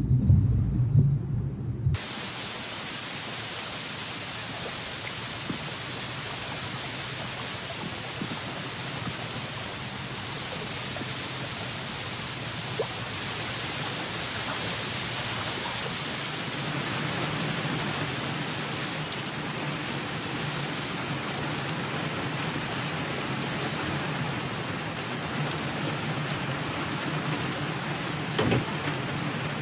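A deep rumble of thunder that cuts off about two seconds in, then a steady hiss of heavy rain falling.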